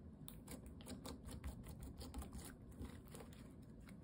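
Pale blue slime being folded and squeezed by hand, giving a quick, irregular run of small sticky clicks and pops that thins out near the end.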